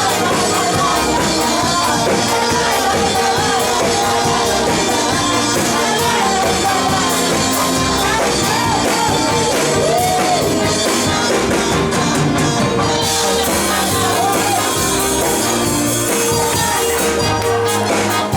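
Live church worship music: a band plays steady held chords while a congregation sings along in many wavering voices.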